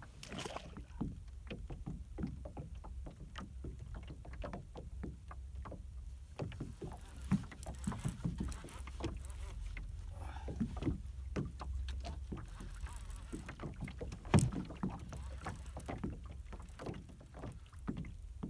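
Water lapping and slapping against the hull of a small boat, with wind rumbling on the microphone and scattered clicks and knocks. A splash right at the start as a released channel catfish goes back into the water, and one sharp knock about three-quarters of the way through.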